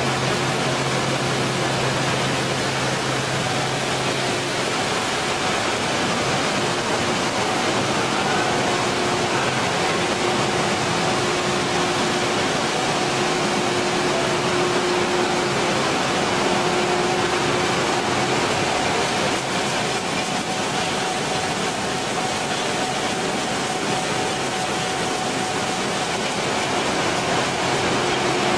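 Steady, even rushing noise of plastic-flake color-sorting and conveying machinery running, with faint steady hum tones; a low hum drops out about four seconds in.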